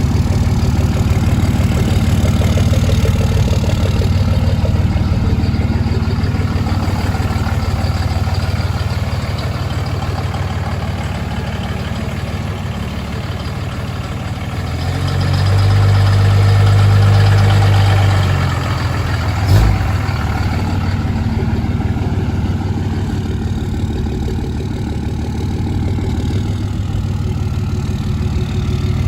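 Cummins diesel truck engine idling steadily, louder for a few seconds about halfway through, with a single sharp knock shortly after.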